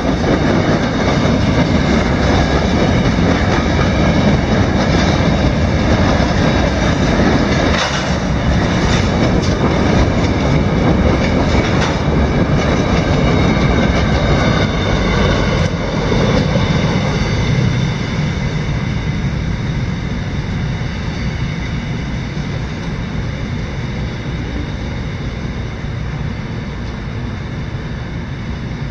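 Freight train of covered hopper cars rolling past, its wheels rumbling and clacking over the rail joints. The sound eases off after about two thirds of the way through and keeps fading.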